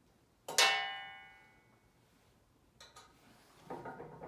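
A metal part or tool strikes the desk's metal frame with a sharp clang that rings on and fades over about a second. A couple of clicks follow, then a short run of clinking and rattling near the end.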